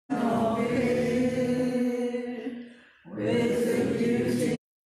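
Congregation singing a hymn in long held notes. About halfway through the singing fades at the end of a line and the next line begins; near the end the sound cuts out abruptly.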